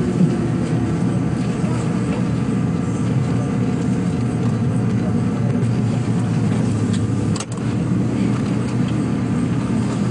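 Steady running rumble of a JR Kyushu 783 series limited express electric train moving slowly, heard from inside behind the front window. There is one sharp click about seven and a half seconds in.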